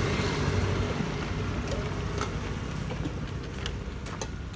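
Small motorbike engine humming steadily, then fading away after about a second, leaving a noisy hiss with a few light knocks.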